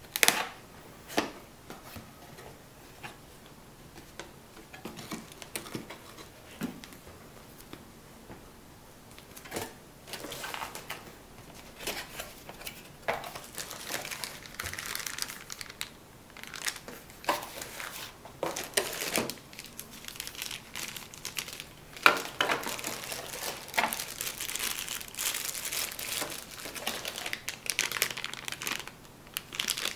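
Product packaging being handled and opened: plastic and paper crinkling and rustling with some tearing and sharp clicks. It gets busier about a third of the way in.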